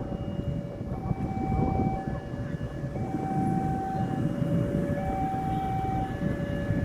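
A two-tone warning siren, alternating between a lower and a higher note about once a second, over a steady low rumble.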